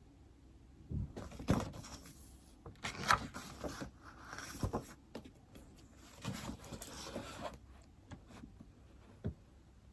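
Irregular knocks, taps and short rustling or sliding sounds of objects being handled on a desk, busiest in the first two thirds, with one last knock near the end.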